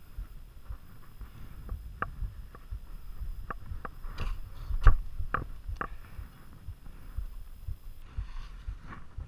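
Ice axe and crampons biting into hard snow and ice on a steep slope: a string of irregular sharp crunching strikes, the loudest about five seconds in, over a low rumble of the climber's movement against the camera.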